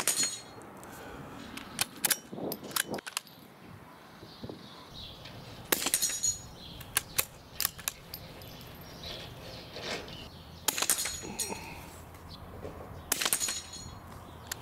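Several shots from a .22 rimfire rifle firing 40-grain subsonic rounds, some followed by the high metallic ring of a steel spinner target being hit.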